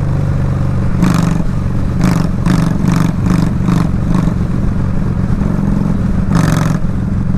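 A 2003 Honda Shadow's V-twin engine running steadily while the motorcycle is ridden, with several brief bursts of noise over it.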